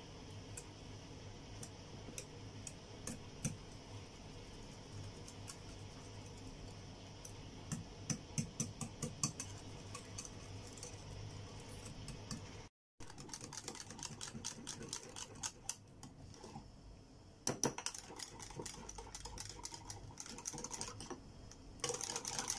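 Wire balloon whisk beating eggs, yogurt, oil and sugar in a glass bowl: quick runs of light ticking and clinking as the wires strike the glass.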